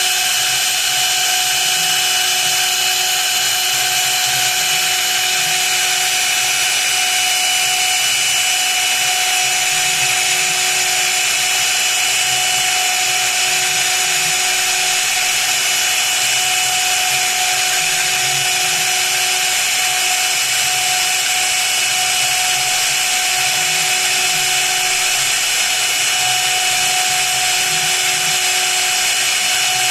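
High-speed spindle of a small CNC mill running steadily as it machines a copper-clad circuit board, a continuous high-pitched whine with a hiss of cutting over it.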